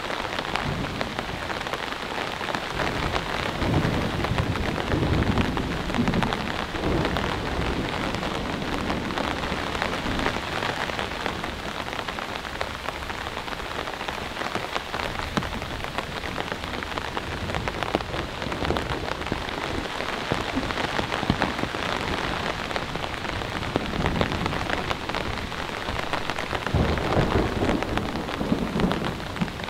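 Steady heavy rain falling and pattering on surfaces, full of close drop hits, with low rolls of thunder about four seconds in and again near the end.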